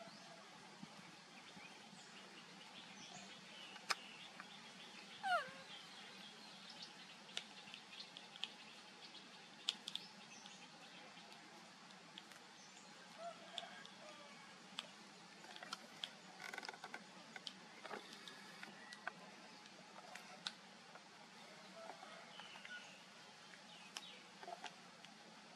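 Faint outdoor ambience with scattered short chirps and small clicks. A single falling squeak about five seconds in is the loudest sound.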